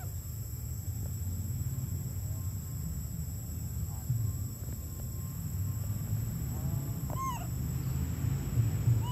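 Forest ambience: a steady high insect drone over a low rumble, with a few short, arched animal call notes, the clearest about seven seconds in.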